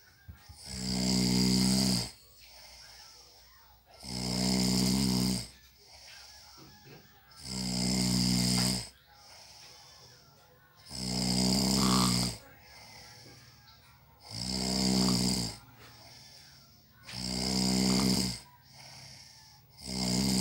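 A person snoring in their sleep, with a loud snore about every three and a half seconds: six in all, and a seventh starting near the end. Quieter breathing comes between the snores.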